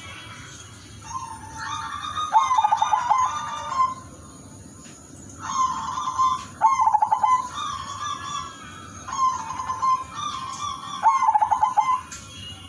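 Caged zebra dove (perkutut) cooing in repeated phrases. Each phrase mixes a rapid stuttering trill with several clear, held notes, and the phrases come every few seconds.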